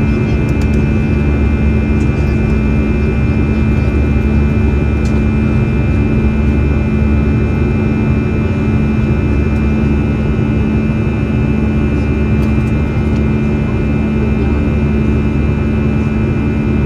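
Airbus A320-214's CFM56-5B jet engines heard inside the passenger cabin: a steady loud drone with a low rumble and constant whining tones, unchanging throughout.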